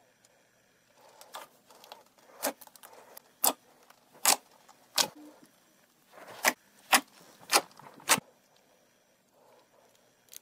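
Thick slime being stretched and folded, giving a series of about eight short, sharp sticky pops and clicks at irregular intervals, with quiet between them.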